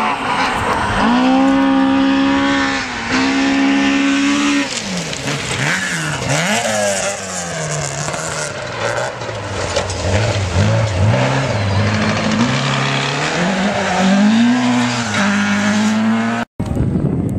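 Toyota Celica RA40 rally car's engine at high revs on gravel. The revs are held, drop at a gear change, then swing up and down repeatedly as the car passes through a corner, with a hiss from the tyres on the loose surface. The sound cuts off abruptly near the end, leaving wind noise on the microphone.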